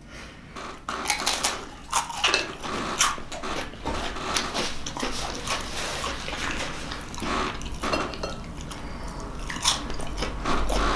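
Close-miked chewing and wet mouth smacks of a man eating a soft vegetable stir fry of zucchini, squash and oyster mushrooms, with sharp clicks of a fork against the plate.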